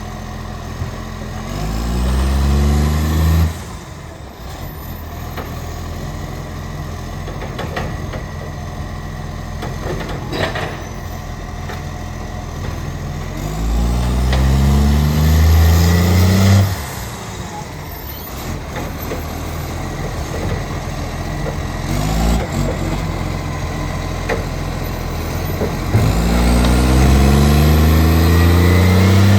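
Diesel engine of an Acco garbage truck that has an exhaust leak: it idles and revs up three times, each rev climbing in steps for two or three seconds before dropping back. A couple of sharp knocks come in between the revs.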